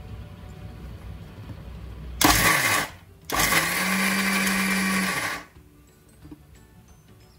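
Preethi Galaxy mixer grinder pulsed twice, dry-grinding roasted oats, peanuts and sesame seeds in its steel jar: a short burst about two seconds in, then a longer run of about two seconds. The motor winds down with a falling whine after each.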